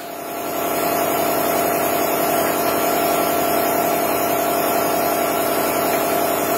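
The air-powered drawbar on the spindle head of a Millport Blue Rhino 1660 bed mill runs steadily as it drives the drawbar out and back in. It starts and stops abruptly.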